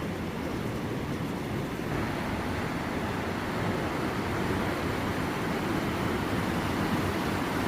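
Steady rush of a waterfall, growing fuller about two seconds in.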